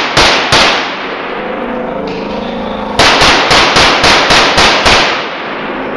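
Open-division competition pistol firing rapidly at an indoor range. Two shots near the start, then after a pause a quick string of about eight shots, about four a second, each ringing in the hall.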